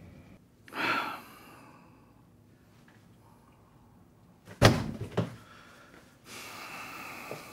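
A hard thud, the loudest sound, about two-thirds of the way in, followed by two lighter knocks within half a second. A short rushing noise comes near the start, and a steadier soft hiss near the end.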